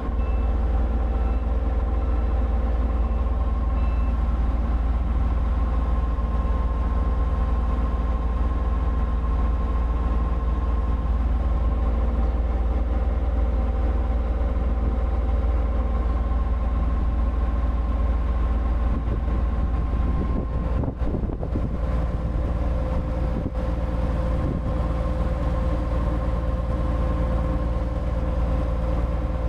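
Komatsu D-series bulldozer's diesel engine running steadily, a deep rumble with a steady whine over it, briefly rougher about twenty seconds in.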